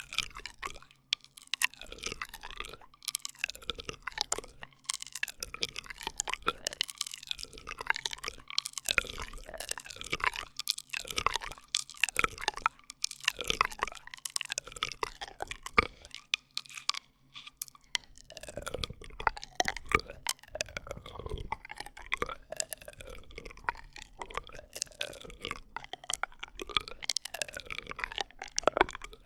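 ASMR straw sounds: plastic drinking straws worked close to the microphone, a dense run of crackles and clicks with many short squeaky gliding tones.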